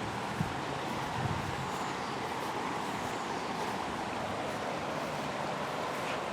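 Steady rush of flowing river water, an even hiss with no break.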